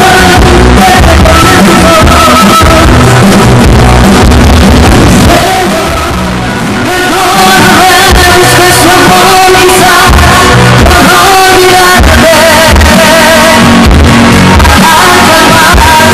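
Live band music, with acoustic guitar, drums and keyboard, behind a woman singing lead through a microphone. The music is loud and drops briefly quieter about five seconds in.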